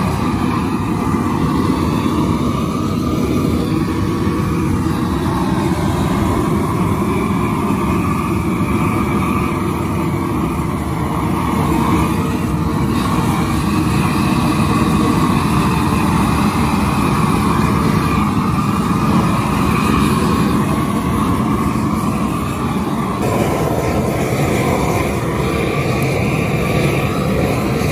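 Propane weed-burner torch running with a steady, loud rush of flame, played over squirrel carcasses on a wire grate to singe off the fur.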